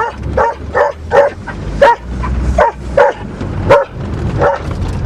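A dog barking repeatedly, about nine sharp barks roughly two a second, over the steady low running of the Volvo's engine.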